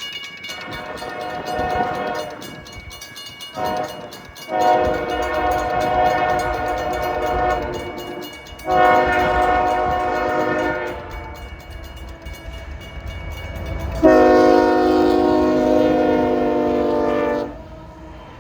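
A CSX freight locomotive's air horn sounds a chord in a series of blasts, several long ones and one short one. The last and loudest begins about fourteen seconds in and lasts about three and a half seconds. A low rumble from the approaching train runs underneath.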